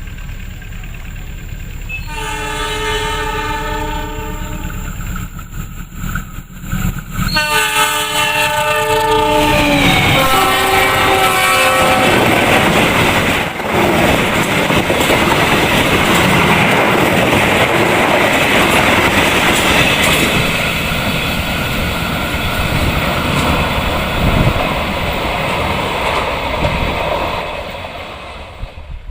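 Train locomotive horn sounding a long multi-note blast, then a second one after a short break, its pitch dropping as the locomotive passes. The train's rumble and wheel clatter follow as the carriages go by, fading near the end.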